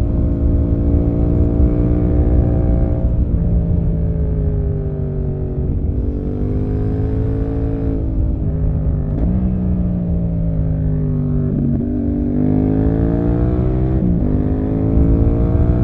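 Yamaha MT-07's 689 cc crossplane parallel-twin engine running through an SC-Project aftermarket exhaust while riding: the engine note falls off and rises again several times with the throttle, with sudden jumps in pitch at gear changes.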